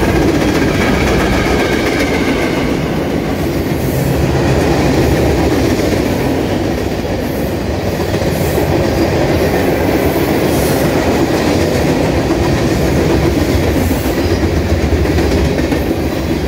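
Freight train cars rolling past on the rail: a loud, steady rumble of steel wheels and cars.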